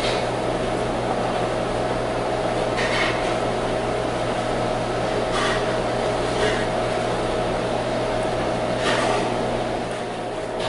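Steady machine hum with a held mid-pitched tone, like a fan or air-conditioning unit running, with a few short, sharp sounds every few seconds on top.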